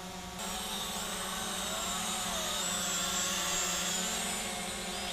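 Visuo mini quadcopter drone in flight, its motors and propellers whining steadily. The pitch wavers up and down a little as the motors change speed while it is steered.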